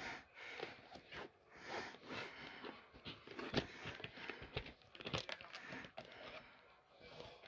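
Hands handling and opening a plastic VHS clamshell case: faint rustling and rubbing with a few sharp plastic clicks and knocks, the loudest about three and a half seconds in.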